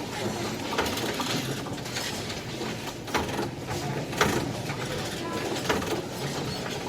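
Subway station ambience: background crowd chatter over a low steady rumble, with several sharp clacks from turnstiles.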